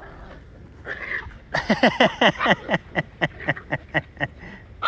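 Pembroke Welsh Corgi puppy yelping in a rapid series of short, falling-pitched cries, starting about a second and a half in. They come quickly at first, then slow to about four a second.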